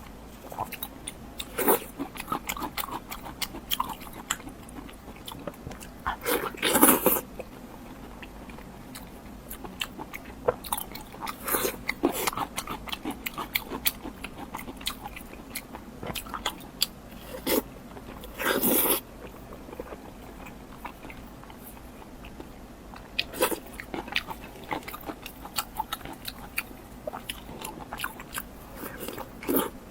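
Close-up eating sounds: a person biting and chewing, with many small wet mouth clicks and crunches. There are two louder, longer bites, about seven seconds in and near nineteen seconds.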